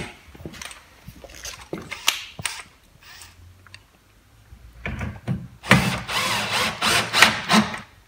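Cordless drill-driver driving screws into the top rear of a washing machine to fasten the lid, in several short runs over the last three seconds. Before that, a few knocks and clicks of handling the machine's panels.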